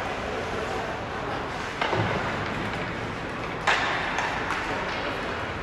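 Ice hockey rink ambience with two sharp knocks about two seconds apart, the second louder and ringing on: puck or stick strikes during play.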